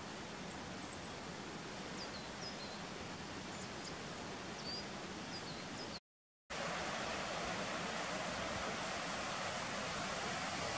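Steady rush of a mountain stream, with a few faint high bird chirps in the first half. The sound breaks off for about half a second some six seconds in and comes back louder.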